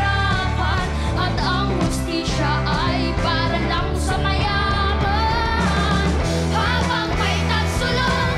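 Children singing a rock song into microphones over a loud backing band with bass and drums.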